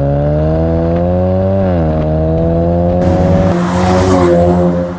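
Ford Mustang's 2.3-litre EcoBoost turbocharged four-cylinder running at low revs through an aftermarket turboback exhaust with quad tips, its note climbing gently, dropping back about a second and a half in, then holding steady. A rushing hiss joins about three seconds in as the car rolls past.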